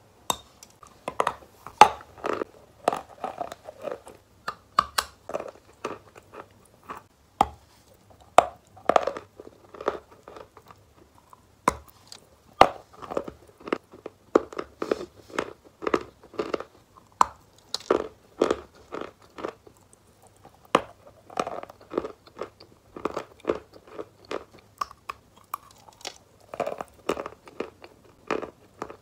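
Wet "Valuichik" chalk being bitten and chewed: a continual run of sharp, irregular crunches with wetter chewing sounds between them.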